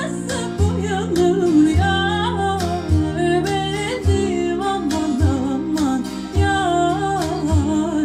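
A woman singing a slow melody full of winding melismatic runs, over an accompaniment whose low notes are struck about once a second.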